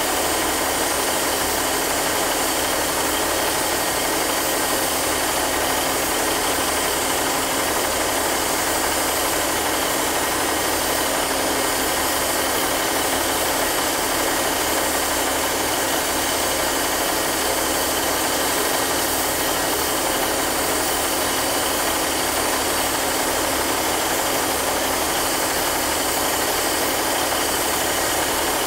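Class 150 Sprinter diesel multiple unit standing with its underfloor diesel engines idling: a steady, unchanging engine noise with a wash of hiss over it.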